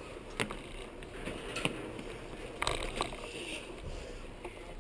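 A bicycle and its homemade handlebar camera mount rattling as the bike moves, with a low rumble and four sharp knocks.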